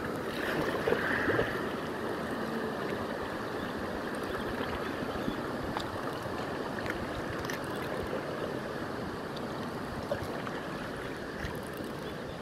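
River water running steadily through the gorge, heard from a kayak on the water: an even rushing sound with a few faint clicks.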